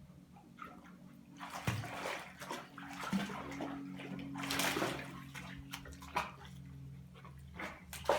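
Water sloshing and splashing in irregular bursts, with a few sharper splashes, over a steady low hum.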